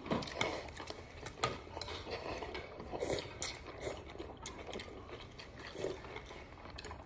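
A metal spoon and plastic chopsticks clink and scrape against a ceramic bowl of noodle soup while the noodles are stirred and lifted, with a few sharp clicks, and a slurp of noodles about halfway through.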